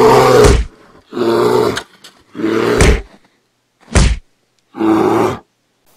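A young man's loud wordless cries: a series of roars and groans about one a second, one of them a short, sharp yell.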